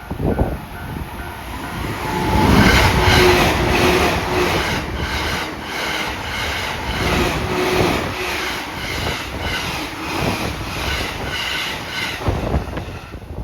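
Tokaido Line electric commuter train passing at speed, about 108 km/h, with the rhythmic clatter of its wheels. A level-crossing warning bell rings briefly at the start.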